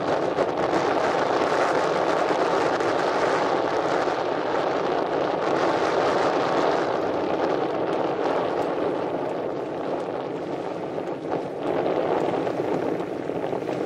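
Steady wind noise buffeting the microphone, dipping a little about ten seconds in.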